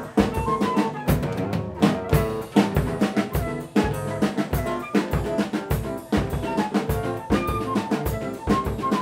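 Live trio of clarinet, acoustic guitar and drum kit playing a fast choro tune. The clarinet runs a quick melody over strummed guitar, with busy snare, rimshot and bass-drum strokes.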